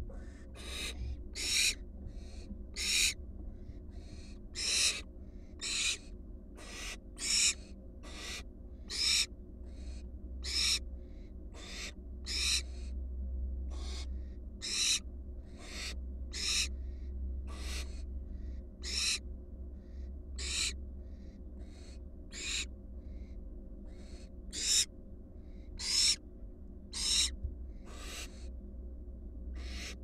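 Young barn owls hissing over and over, roughly once a second, some calls louder and closer than others, over a low steady hum.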